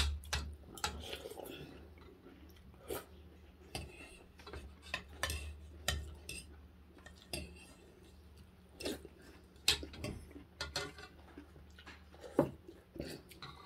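Metal spoons and forks clinking and scraping against ceramic soup bowls while eating, in irregular, scattered taps.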